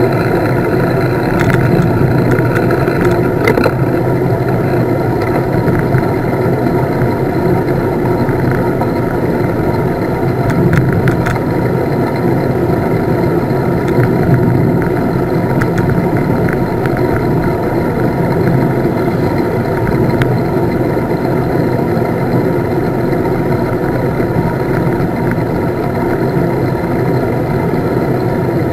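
Steady rush of wind over the microphone of a handlebar-mounted camera on a road bike rolling fast down a descent, mixed with the noise of the tyres on asphalt.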